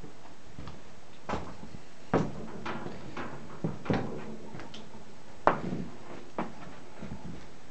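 Footsteps and scattered knocks on a hard barn floor, uneven and irregular, roughly one or two a second, with a sharper knock about five and a half seconds in.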